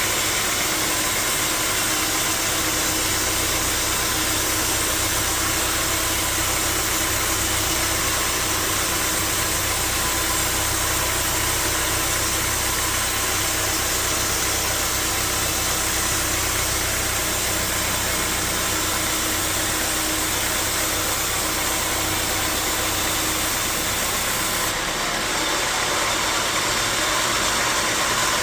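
Sawmill machinery running steadily: a continuous engine-like hum under a loud, even hiss. About 25 seconds in, the low hum drops away and the sound changes.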